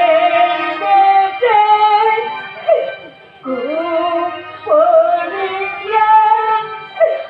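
Music: a high singing melody in short phrases, the notes scooping upward at their starts, over a steady sustained accompaniment.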